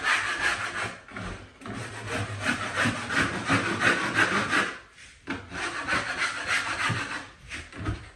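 Rapid rasping strokes of a tool scraping over a drywall surface, with a short break about five seconds in and another near the end.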